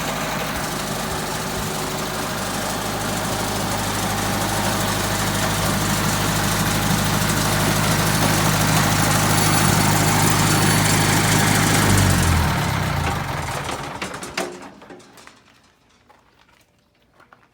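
Old portable sawmill's engine running steadily, then winding down and shutting off about twelve seconds in, leaving near silence with a few faint clicks.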